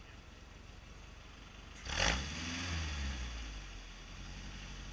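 Toyota pickup's engine revving hard as the truck climbs a rock, starting with a sudden loud burst about two seconds in and easing back over the next couple of seconds to a low run.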